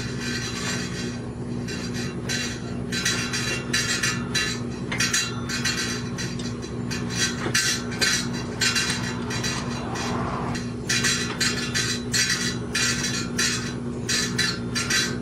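Bicycle headset parts clinking and scraping in short, irregular bursts as a bearing ring, washer and top nut are fitted and turned onto the fork's threaded steering tube. A steady low hum runs underneath.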